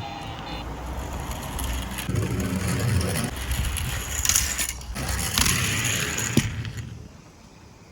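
Die-cast toy cars rolling and clattering over a plastic slope: a rumbling roll with a rattle that builds, with a sharp click about six seconds in, then dies away near the end.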